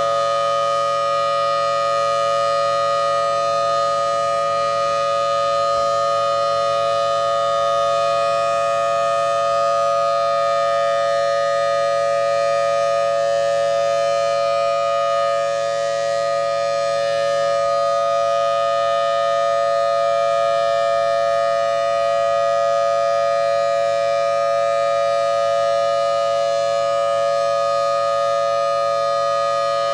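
Federal Thunderbolt 1003 civil-defense siren sounding a steady alert tone, a chord of several pitches held without rising or falling. Because its rotator is broken, the horn stays fixed in one direction rather than sweeping, so the sound does not wax and wane.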